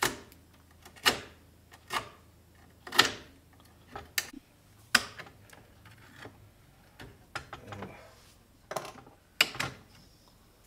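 A hand tool scraping and prying at the glued corner joint of a wooden drawer, about a dozen short, sharp scrapes and clicks at irregular intervals of roughly a second, as hardened expanding glue is worked out of the joint.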